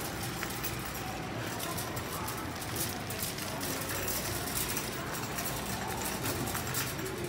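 Steady hum of a vehicle running.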